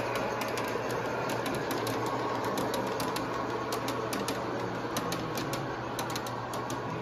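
G-scale model freight train rolling by on the layout track, its wheels clicking quickly and unevenly over the rail joints over a steady low hum.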